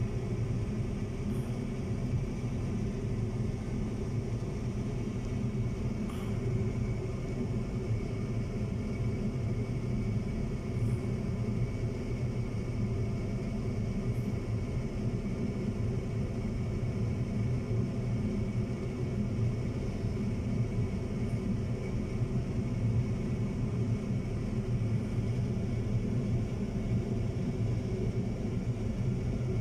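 Steady low engine rumble with a constant droning hum that does not change.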